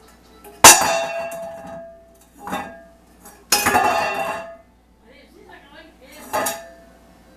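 Stainless steel pet bowl clanging and rattling on a hardwood floor as an animal knocks it about. There are four loud clatters: the first rings on for about a second, and the third is a longer rattle.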